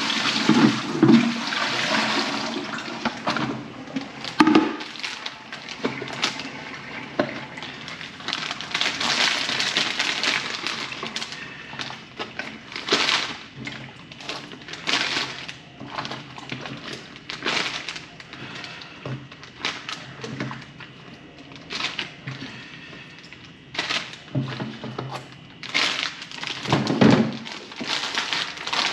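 Water sloshing and splashing mixed with irregular crackles and knocks, as freshly caught squid are handled and packed.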